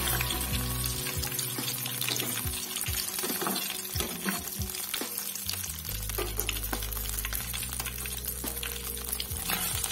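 Hot oil sizzling and crackling around button mushroom pieces frying in a kadai, with clicks and scrapes of a metal slotted skimmer as the pieces are lifted out. Background music plays underneath.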